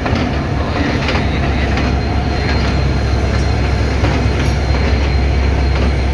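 Class M11 diesel-electric locomotive passing close by at low speed: a steady low engine rumble, with occasional clicks of its wheels on the rails.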